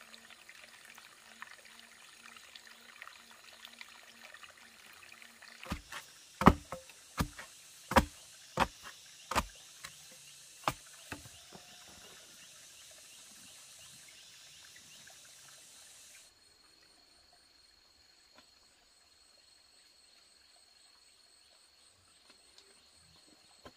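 A run of about ten sharp knocks, roughly two a second, over a steady hiss. Later a faint, steady high tone remains.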